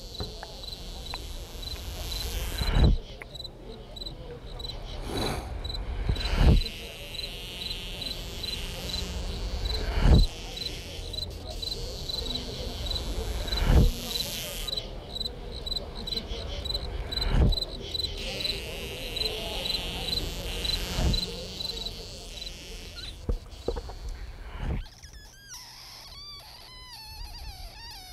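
Composed ambient soundscape of insect-like sounds: a short cricket-like chirp repeating about twice a second over a hazy bed, with a low thump about every three and a half seconds. Near the end the chirps and thumps stop and wavering, sliding tones take over.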